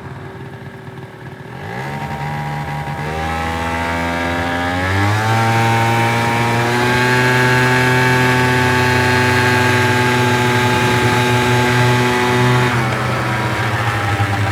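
Motor scooter engine running, its pitch climbing in two rises about 2 and 5 seconds in, holding a steady higher note, then dropping back near the end.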